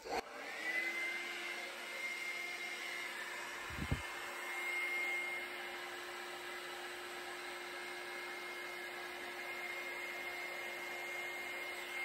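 Handheld hair dryer switched on: its motor whine rises in pitch over the first second, then holds steady over the rush of blown air. A brief low thump about four seconds in.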